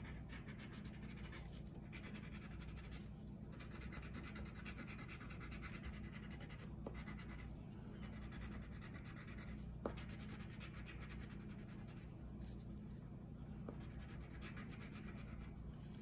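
Wax crayon scratching on paper in quick back-and-forth colouring strokes, faint, with brief pauses between runs of strokes and a light tap about ten seconds in.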